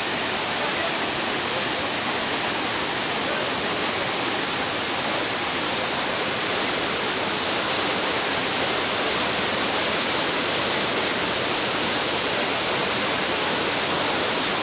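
Manavgat Waterfall, a broad, low cascade of high-volume river water, rushing with a steady, unchanging hiss.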